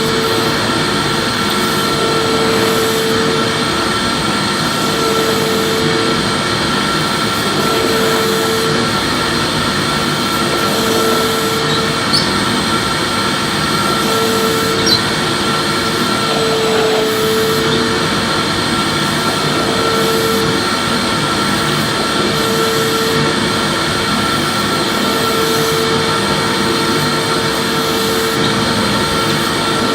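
Electric vacuum cleaner running steadily, with a constant whine and a lower hum that comes and goes every two to three seconds, as when the nozzle is pushed back and forth while vacuuming.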